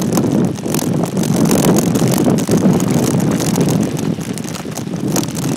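Wind buffeting the microphone over tyre noise on loose sand and gravel, with frequent sharp rattles and knocks from a bicycle riding fast downhill; it eases a little in the last second or so.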